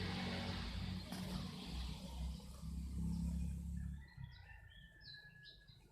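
A low, uneven rumble for about the first four seconds, then birds calling in short, high chirps that fall in pitch, repeated about twice a second.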